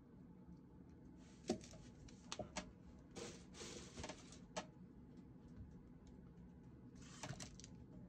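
Faint handling noises: a few light taps and short scratchy rustles over a low steady hum.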